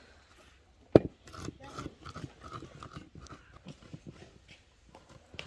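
Hands squeezing and mixing a crumbly ground-walnut filling in a clay bowl: an uneven run of short crunching, squishing sounds, a few a second, after a sharp knock about a second in.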